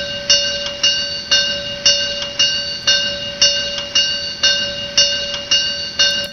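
A looped sample of a gong strike played back on a computer, with a steady ringing tone re-struck about twice a second in uneven strength, strong, strong, then lighter. The unevenness comes from a loop cut from the part where the strike is already dying away. Playback stops abruptly near the end.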